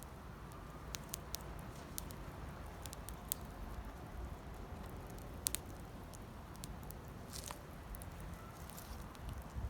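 Wood campfire crackling: scattered sharp pops at irregular moments over a low steady rumble.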